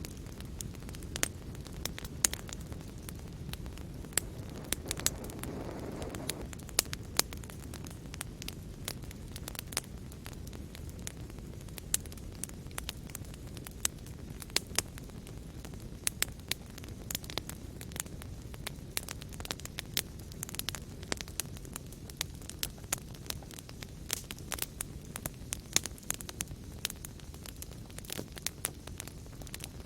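Fire crackling in a fireplace: a steady low rumble of the flames with frequent sharp pops and snaps, and a brief swell a few seconds in.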